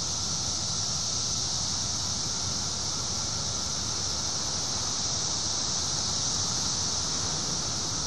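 Chorus of 17-year periodical cicadas: a steady, high-pitched, continuous drone that never breaks.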